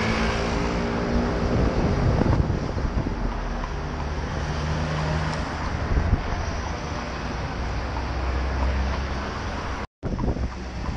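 Street traffic noise with a steady low rumble of wind on the microphone; a vehicle's engine hum stands out about four seconds in. The sound cuts out for an instant near the end.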